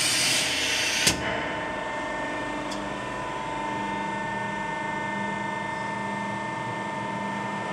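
Brass-nut insertion plastic welding machine: a hiss of compressed air exhausting as the press head retracts, cut off by a click about a second in, then a steady machine hum with a faint high whine.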